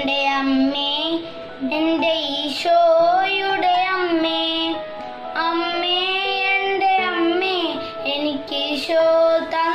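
A boy singing a slow devotional song in a clear child's voice, gliding between long held notes.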